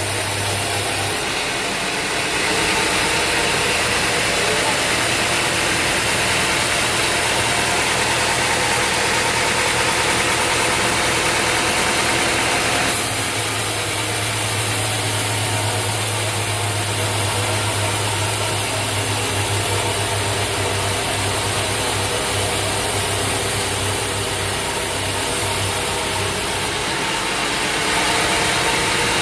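Sawmill machinery running with a steady engine-like drone and hum. The sound shifts abruptly about a second in, about halfway through and again near the end.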